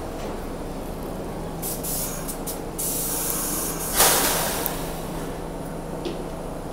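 Stopped New York City subway train letting off air with a hiss: a few short bursts about two seconds in, then one loud hiss about four seconds in that fades over a second, typical of the air brake system venting. A steady low hum from the idling train runs underneath.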